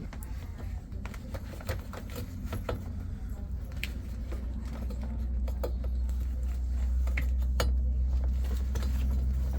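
Light clicks and small metallic rattles from golf cart enclosure panel hardware being handled, over a steady low rumble that gets louder about halfway through.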